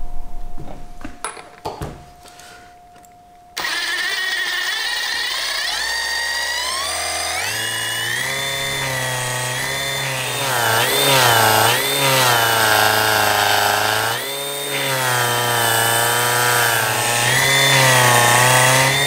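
Cordless drill spinning a small supercharger by its pulley, with the drill motor and supercharger rotors whining. The whine starts about three and a half seconds in, climbs in pitch over the next few seconds, then rises and falls as the drill speed changes.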